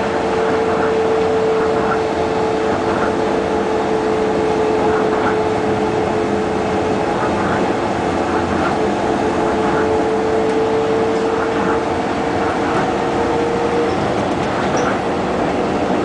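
Vehicle running steadily: a constant rumbling noise with a held whine that stops about two seconds before the end.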